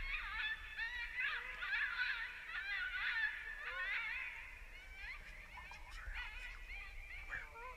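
A group of coyotes yipping and howling together: a dense chorus of wavering, high-pitched calls that grows fainter in the second half.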